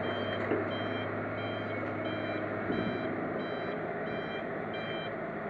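Hydraulic crawler excavator's diesel engine running steadily as it swings a loaded bucket, with a warning alarm beeping about twice a second that stops about five seconds in.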